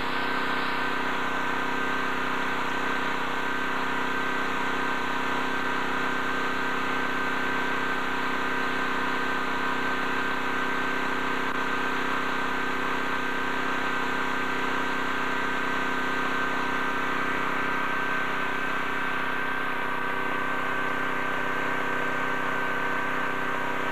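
An engine idling steadily: an even, unchanging hum with a constant high whine above it.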